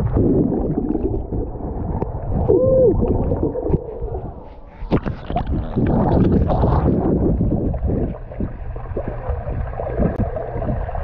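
Muffled underwater sound through a GoPro submerged in a swimming pool: water sloshing and gurgling around the camera as swimmers move. A brief muffled tone rises and falls about two and a half seconds in.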